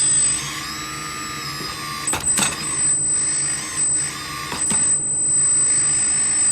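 Small electric motors and hydraulic pump of a radio-controlled construction machine whining, their pitch sagging and recovering as the load changes, with a few sharp clicks and clanks of the model's metal parts.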